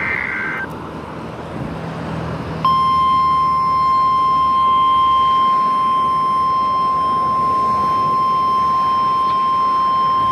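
NOAA Weather Radio weekly test heard through a receiver: the final burst of the digital SAME header, a brief warbling data chirp, then after a couple of seconds of hiss the steady 1050 Hz warning alarm tone comes on and holds.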